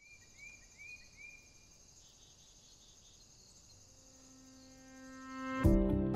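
Insects chirping in a steady high chorus, with four short rising chirps in the first second and a half. A sustained musical note fades in from about four seconds, and loud music with a beat starts just before the end.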